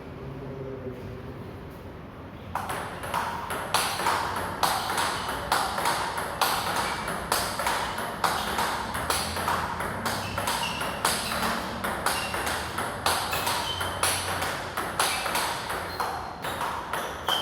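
Table tennis ball clicking back and forth off bat and table in a fast, steady practice rally, starting about two and a half seconds in, a couple of hits each second.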